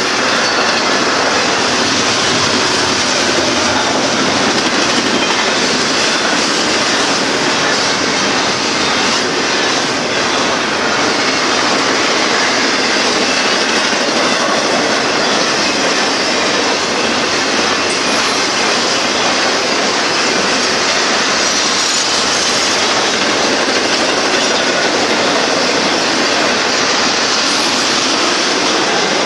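Double-stack container well cars of a freight train rolling past close by: the steady, loud noise of steel wheels running on the rails.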